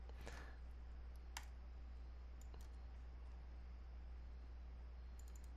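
Faint computer mouse clicks over a steady low hum: a single click about a second and a half in, and a quick run of about four clicks near the end.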